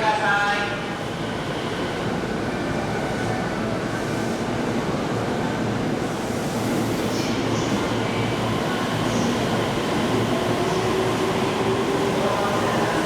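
E233-series electric commuter train moving at the platform, a steady rumble of wheels and running gear.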